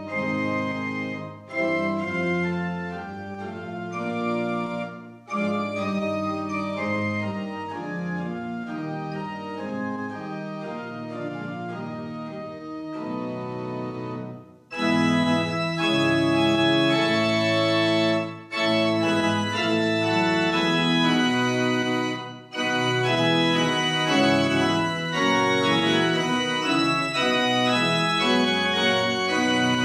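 Organ postlude: sustained chords played in phrases with brief breaks between them, fuller and louder from about halfway.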